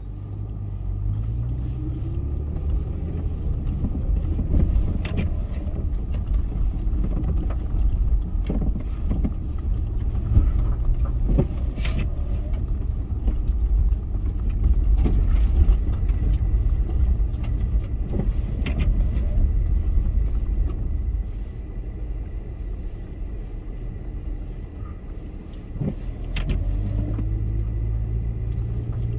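Four-by-four's engine running as it drives over a rough dirt track, the revs climbing about a second in and again near the end, with scattered knocks and clatters throughout.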